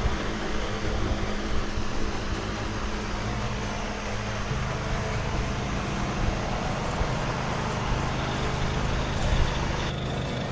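A motor running steadily, with a low hum that shifts about four and a half seconds in.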